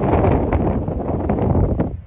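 Wind buffeting the microphone: a loud, gusty rumble that cuts off abruptly at the end.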